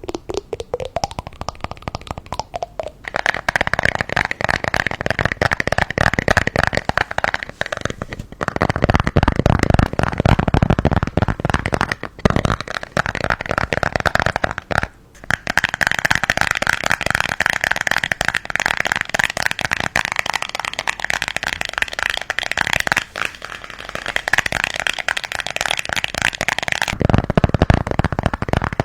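Close-miked ASMR crackling and crinkling of a paper piñata and wrapped candies being handled, a dense run of small crackles and clicks with two short lulls.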